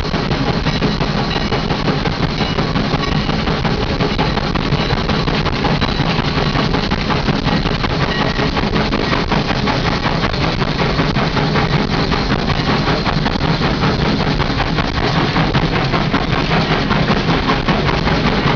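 Steady, loud running noise in the cab of Sierra Railway No. 3, an 1891 Rogers 4-6-0 steam locomotive, under way.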